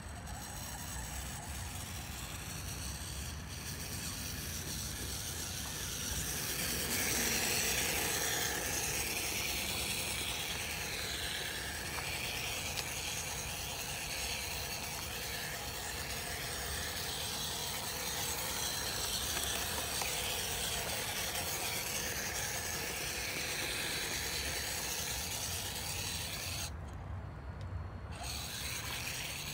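Small electric hobby-grade RC car running, its motor and gears whining up and down with the throttle while the tyres scrabble through snow and grass. The whine cuts out for about a second near the end.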